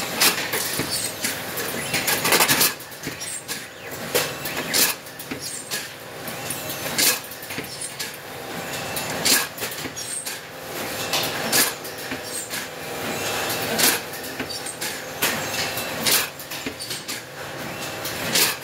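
IQ-HSL high-speed Petri dish filling machine and its bulk loader running: a continuous mechanical clatter with a sharp clack that repeats a little more than every two seconds as the machine cycles.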